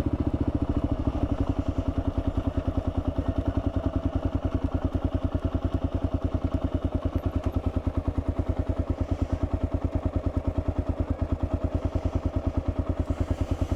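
Kawasaki KLR650's single-cylinder engine idling steadily, with an even, quick thumping beat that holds unchanged.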